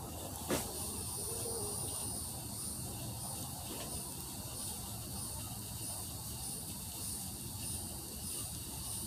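A high, thin insect call, steady at first and then pulsing about twice a second. A single sharp click or snap sounds about half a second in.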